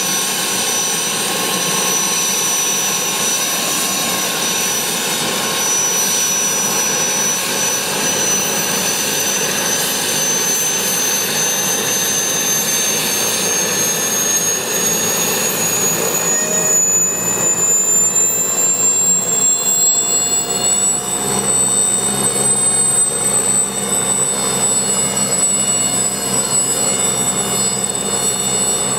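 Aérospatiale SA-318C Alouette II's Turbomeca Astazou turboshaft engine running with the main rotor turning on the ground. A high turbine whine rises slowly in pitch through the middle, with a second, lower whine joining and rising, then both hold steady as the engine speeds up.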